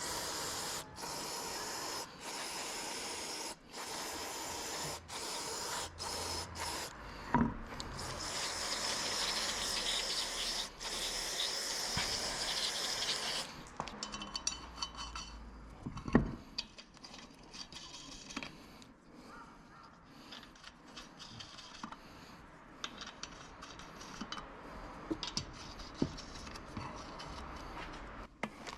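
Hissing, rubbing noise in a run of strokes with short breaks between them for about thirteen seconds, then quieter with scattered clicks and knocks.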